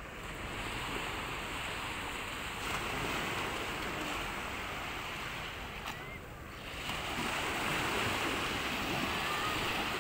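Small waves breaking and washing up onto a sandy beach: a steady rush of surf that eases briefly just past the middle and then swells again.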